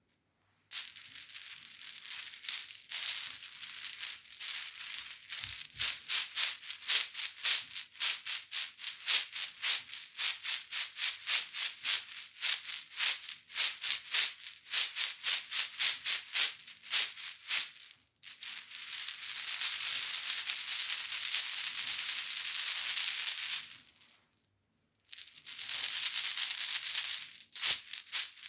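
Chakcha rattle, a grape-bunch cluster of hard shells, shaken so the shells clatter against each other. It is first shaken in rhythmic strokes about four a second, then in a steady unbroken rustle for about six seconds. It stops briefly, then goes back to rhythmic strokes.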